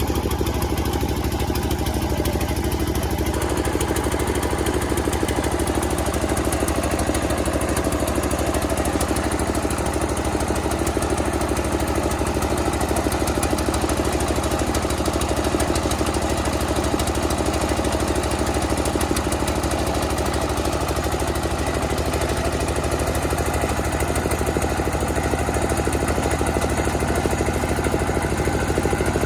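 Rice milling machine running steadily, a continuous mechanical drone with a strong low hum. Its sound changes slightly about three seconds in, then stays even.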